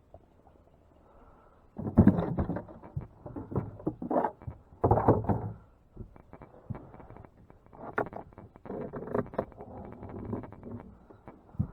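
Irregular knocking and rustling clatter, the handling noise of gear being moved about in a small fishing boat, starting about two seconds in.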